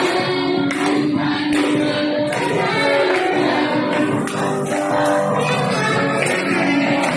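Worship song at a church service: voices singing a praise song over instrumental accompaniment with a steady percussion beat.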